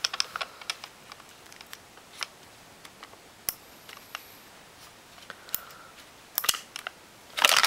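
Scattered clicks and taps from an electric airsoft MP5 being handled while the pin holding its handguard is pushed out, with a louder run of rattling clicks near the end.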